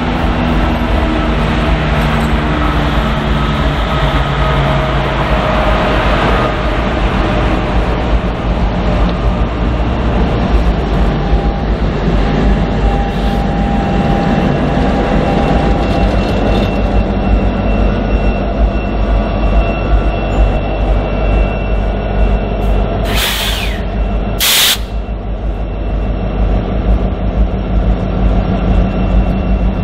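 Several BNSF diesel-electric locomotives passing close by, with steady engine drone and wheel rumble on the rails. Two short hisses come about 23 s in.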